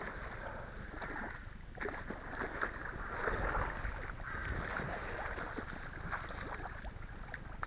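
A hooked fish thrashing at the surface close by, in a run of irregular splashes while it is played on the rod.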